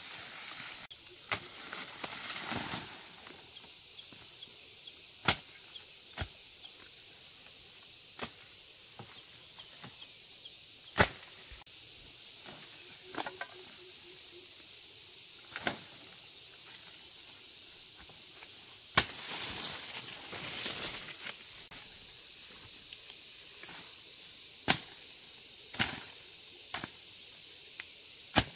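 Machete chopping sugar cane stalks: about a dozen sharp single chops at irregular intervals, with rustling of the cane leaves as stalks are pulled and fall.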